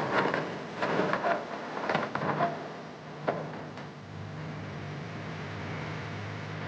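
Excavator at work: a run of irregular clanks and knocks for the first three seconds or so, then its engine running as a steady low hum from about four seconds in.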